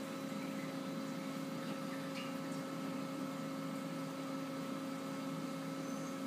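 Steady hum of running aquarium equipment: a few constant tones over a faint, even hiss.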